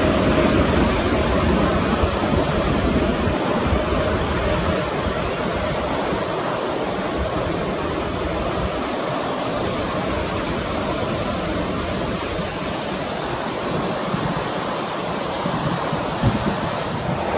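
Twin-engine jet airliner at takeoff thrust, heard from behind as it rolls away down the runway and climbs out: a steady, deep roar of jet blast that slowly eases as the aircraft draws away.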